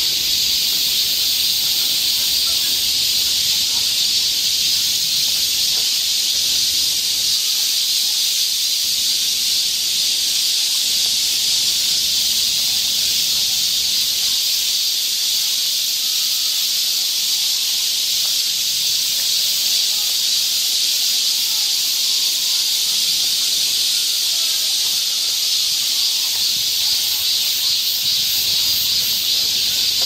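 Dense chorus of cicadas buzzing in summer woodland, a steady high-pitched drone, with a few faint bird chirps underneath partway through.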